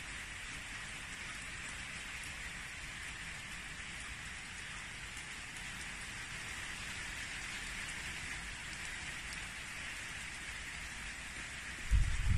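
Steady rain falling, an even hiss of drops throughout. A few louder low thumps break in near the end.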